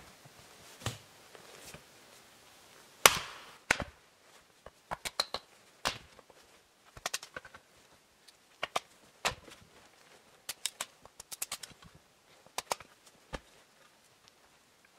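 A series of sharp, irregular snaps and knocks, a few a second at times, the loudest about three seconds in.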